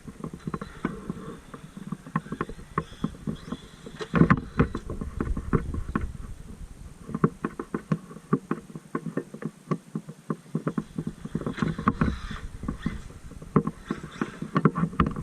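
Traxxas MAXX electric RC monster truck driving over rocks, its tyres and chassis clattering and knocking irregularly, with louder bursts of knocks about four seconds in and again near the end.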